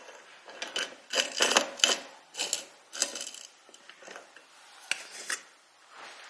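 An old coffee container with coffee beans in it being handled and checked: a run of short rasping scrapes and rattles, busiest in the first half, then a few light clicks and knocks.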